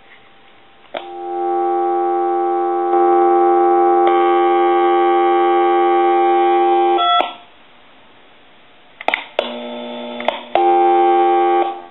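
Telephone dial tone playing through a lineman's butt set's small speaker: a steady, unchanging tone that comes on about a second in, holds for about six seconds and cuts off with a click. After a couple of clicks it comes back twice, briefly, near the end.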